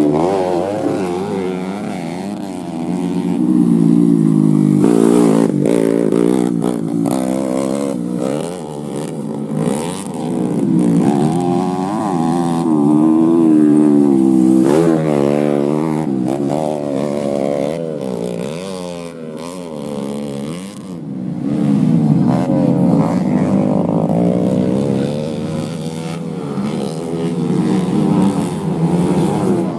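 Race motorcycles with small underbone (bebek) engines accelerating hard on a dirt grasstrack. The engine note repeatedly climbs in pitch and drops back as the riders open and close the throttle through the corners.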